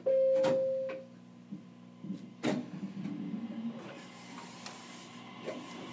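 Inside a JR Kyushu BEC819 battery-electric train: a single clear chime tone rings for about a second and fades, over the steady hum of the train's equipment. A sharp click comes about two and a half seconds in, followed by a short low rumble.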